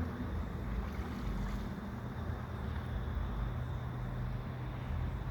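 Steady low rumble of wind on the microphone over the sound of river water around a bamboo raft.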